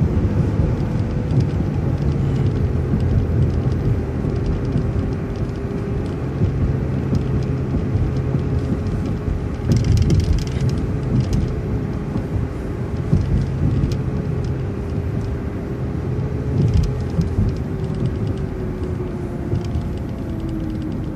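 City transit bus driving along the road, engine and drivetrain running with road rumble and a steady whine that drops in pitch near the end as the bus slows.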